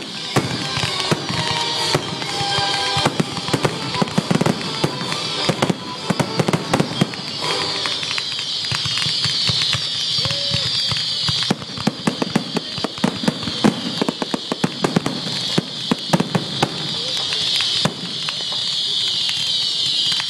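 Fireworks going off: a dense run of sharp crackling pops and bangs, over a steady high hiss.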